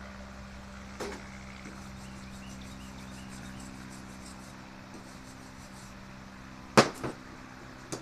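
Arc welder humming steadily, with a light knock about a second in and a loud sharp crack near the end, followed by a smaller one.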